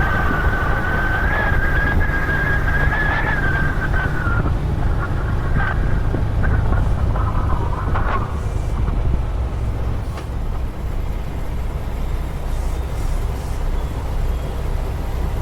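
Heavy truck's engine and cab running with a steady low rumble, with a wavering high-pitched whine over it for the first few seconds that fades out.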